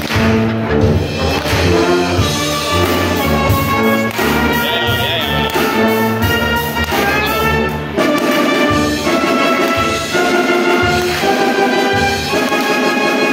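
Brass band of trumpets, trombones and tuba playing live, a rock medley arranged for brass, with held melody notes over a steady low bass line.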